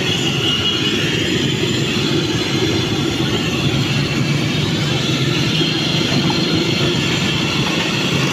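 French fries bubbling and sizzling in a large pot of hot oil, a steady hiss over a continuous low rumble.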